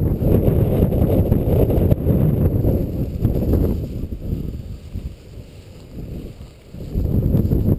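Wind buffeting the camera's microphone as a loud low rumble, with the rustle of walking through dry grass. It eases off for a few seconds past the middle and comes back strongly near the end.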